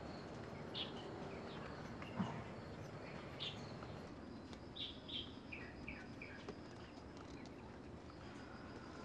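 Small birds chirping now and then over a faint, steady outdoor background, with a quick run of short chirps stepping down in pitch about six seconds in. A single soft thump about two seconds in.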